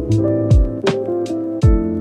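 Music with a steady beat: a deep kick drum and sharp percussive hits over held chords and a moving bass line.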